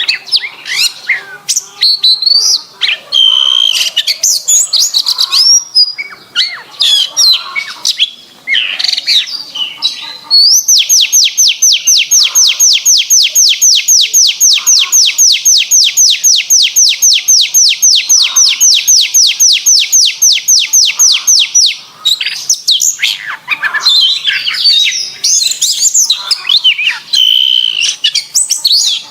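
Domestic canary singing a clear, varied song of high warbled phrases. Around the middle comes one long rapid trill of evenly repeated falling notes, about five a second, held for roughly eleven seconds before the varied phrases resume.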